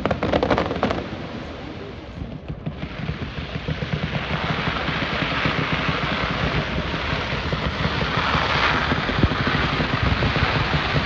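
Firework crackling in the first second, the tail of a burst, then a steady rushing noise that starts about two and a half seconds in and slowly swells.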